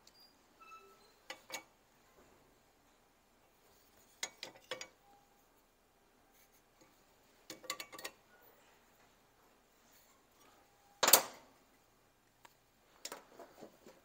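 Light metallic clicks and clinks of a steel combination square and hand tools handled against steel angle bar clamped in a bench vise, in small groups, with one much louder sharp metal clank about eleven seconds in.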